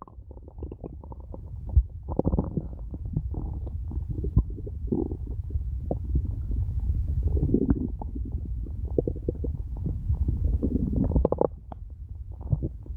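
A hungry person's stomach growling: a continuous low rumble broken by many quick gurgling clicks, with several longer gurgles along the way.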